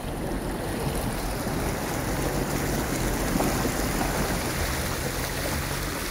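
A car's tyres ploughing through shallow muddy floodwater: a steady rushing splash of spray, with the engine's low hum underneath.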